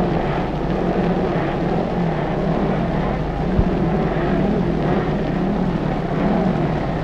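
Steady drone of motorcycle racing engines on an old newsreel soundtrack.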